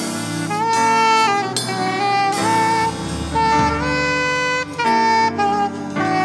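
Instrumental music with a lead melody of held and sliding notes over bass and drums: the opening of a worship song, before the singing comes in.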